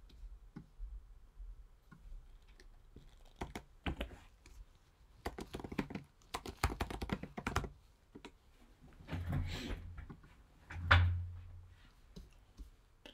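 Typing on a computer keyboard: scattered keystrokes, then a quick run of them in the middle. Near the end come a couple of heavier thuds, the loudest about eleven seconds in.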